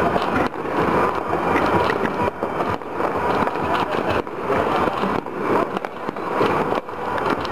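New Year firecrackers and fireworks going off all over a city: a dense, unbroken crackling and popping from many distant explosions at once.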